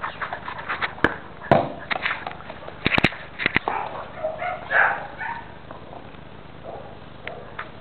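Cane Corso dog making a few short vocal sounds, with several sharp knocks in the first half.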